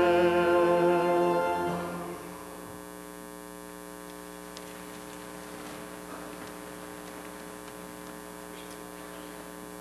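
A held musical chord, the closing Amen, fades out about two seconds in. It leaves a steady electrical mains hum with a few faint rustles.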